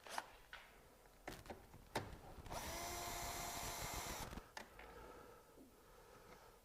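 A cordless power driver with an 8 mm socket runs steadily for about two seconds, spinning out a bolt. A few sharp clicks of the socket and tool come before and after.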